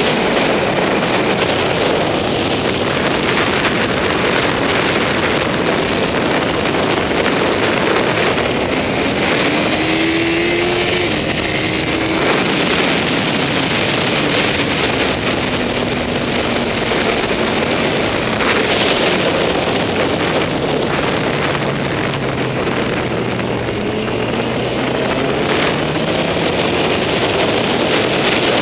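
Wind rushing over an onboard camera on a Honda CBR954RR sportbike at track speed, loud and steady, with the 954 cc inline-four engine's note heard faintly underneath, rising about ten seconds in and falling and dipping later as the bike brakes and leans into a corner.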